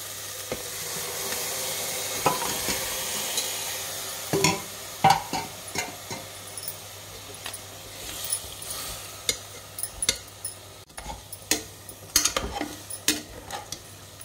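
Mutton breastbone pieces dropped into hot masala in an aluminium pressure cooker, sizzling for the first few seconds, then stirred with a metal spoon that scrapes and knocks repeatedly against the pot.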